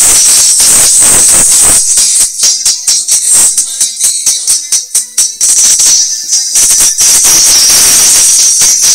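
A song played through a car-audio tweeter alone, high-passed by a crossover: loud and thin, mostly bright cymbal and shaker highs with a steady rhythmic beat. The little low end there is drops away for about a second around the middle.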